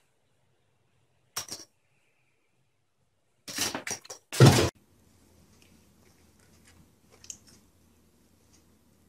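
A few short clattering bursts, with the loudest a heavy one about four and a half seconds in, then faint scuffling, from a small toy quadcopter drone knocking about on a wooden floor by a door frame.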